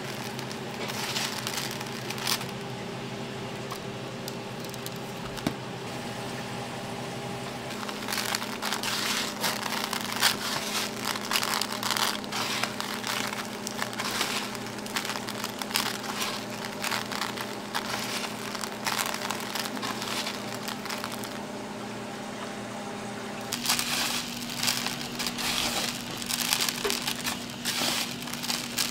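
Dense, irregular crinkling and crackling handling noise over a steady low hum.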